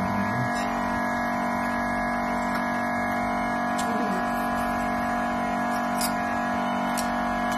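Steady electric hum with several fixed tones from a phone screen separator machine running as its wire cuts the glass off an LCD, with a few faint clicks.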